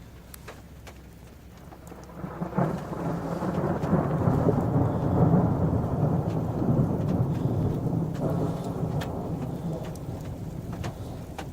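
Thunder from a lightning strike. A deep rumble builds about two seconds in, swells for several seconds, then slowly dies away.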